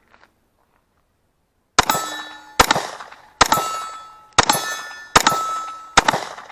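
Six pistol shots, about one every 0.8 s, each followed straight away by the clang of a hit steel plate target ringing out. Before the first shot there is a second and a half of near silence.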